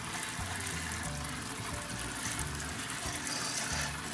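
Tap water spraying steadily onto okra in a stainless steel colander as the pods are rinsed, a continuous hiss, over background music.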